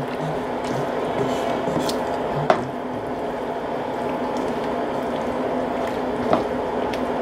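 Wooden spatula stirring sour cream through cooked chile strips in a skillet: a steady wet squishing, with two sharp knocks of the spatula against the pan, one about two and a half seconds in and one near the end.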